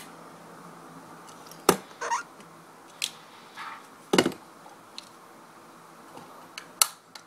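Small plastic makeup containers handled close to the microphone: about four sharp taps and knocks, with brief rubbing and scraping in between.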